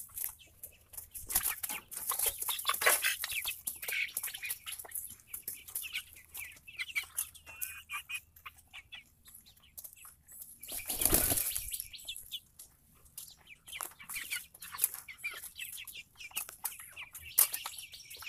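A flock of Red Ranger broiler chickens moving about in a wire-mesh chicken tractor: many small scratching and pecking clicks on wood-chip mulch, with soft clucks and short chirps. About eleven seconds in comes a loud flurry of wing flapping lasting about a second.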